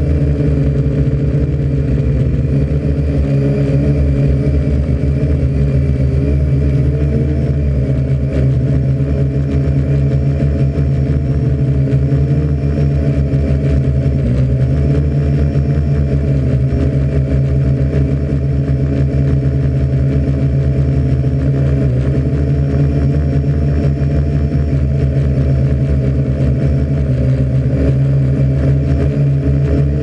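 Parrot AR.Drone 2.0 quadcopter's four motors and propellers running in flight, heard from on board the drone: a loud, steady low hum made of several tones that waver only slightly as it manoeuvres.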